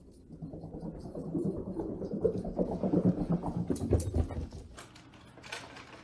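A small dachshund's paws galloping on carpet in a quick patter, growing louder as it nears and loudest about four seconds in, then fading.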